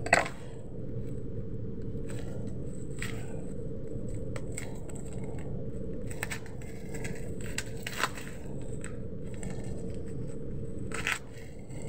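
Black plastic wrapping crinkling and crackling as it is handled and pulled open, in irregular bursts with sharper crackles right at the start, about eight seconds in and near the end, over a steady low hum.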